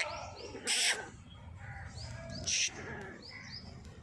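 Small birds chirping repeatedly in short, high arched notes, broken twice by a short loud hissing burst, about a second in and again midway.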